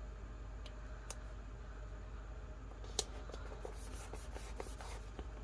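Faint handling of paper and a sticker on a journal cover: a light tap about a second in, a sharper click about three seconds in, then soft scratchy rustling near the end, over a low steady hum.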